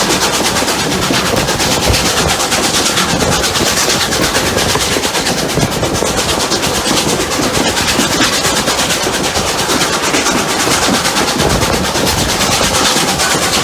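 Two steam locomotives, SAR Rx class 4-6-0 Rx207 and 620 class Pacific 621, working hard together up a grade, heard from on board: a steady, rapid beat of exhaust and running gear over a continuous rush of steam and train noise.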